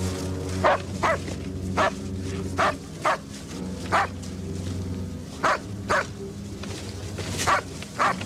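A dog barking: about ten short, sharp barks, often two close together, over a steady low hum.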